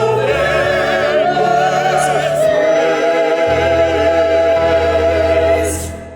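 Sung music: a voice with strong vibrato over sustained low accompaniment, holding a long final note that stops about five and a half seconds in and dies away.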